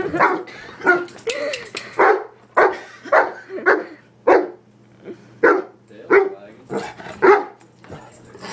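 Dog barking over and over at a baritone saxophone's bell: a dozen or so short barks, roughly one every half-second to second, with a couple of brief pauses.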